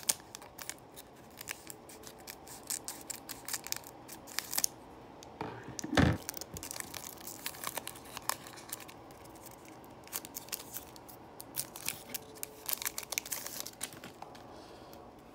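Foil wrapper of a trading-card pack crinkling and tearing as it is ripped open by hand, in a dense run of small crackles. A single thump about six seconds in is the loudest sound.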